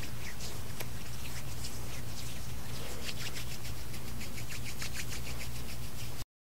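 Room tone: a steady low hum with faint scattered ticks and rustles, cutting off abruptly to silence near the end.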